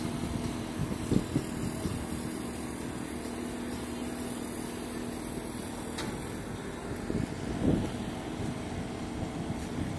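Steady low engine hum with a constant drone, over a haze of outdoor noise, with a few short thumps about a second in and again near the end.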